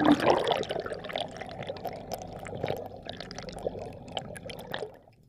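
Water heard with the camera's microphone underwater: a muffled rushing and bubbling, loudest at the start, scattered with many small clicks. It cuts off suddenly near the end.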